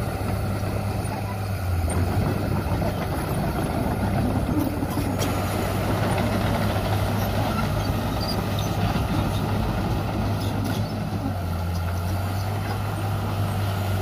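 Crawler bulldozer's diesel engine running steadily as the dozer pushes soil with its blade. The engine hum turns rougher and less even from about two seconds in and settles back to a steady note near the end.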